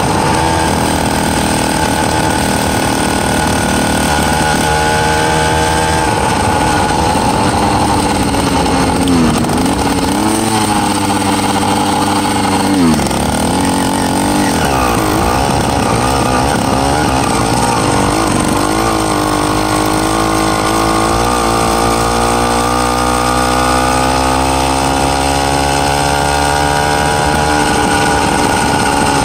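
Two-stroke motorized bicycle engine running as the bike rides along. Its pitch dips and rises a few times in the middle and climbs steadily over the last several seconds.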